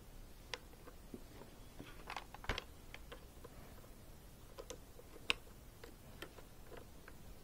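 Scattered light clicks and taps of a small screwdriver and plastic facemask clips being handled on a football helmet, with two sharper clicks about two and a half and five seconds in.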